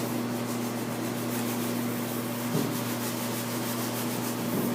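Knife rubbing and scraping against a raw chicken carcass on a cutting board, with a few light knocks, over a steady background hum and hiss.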